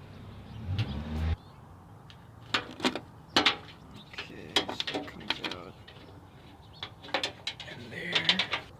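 A low hum for about the first second and a half that cuts off suddenly, then irregular clicks, knocks and scrapes as the antenna's coax cable and wiring assembly are worked out through the mounting hole.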